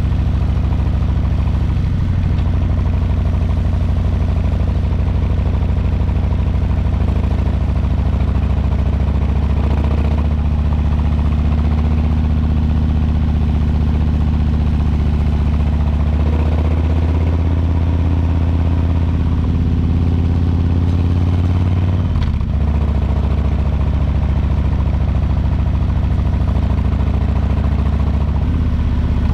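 2022 Harley-Davidson Low Rider S's Milwaukee-Eight 117 V-twin running under way on the road, its exhaust note rising and falling with the throttle. There is a brief break in the engine note about three quarters of the way through.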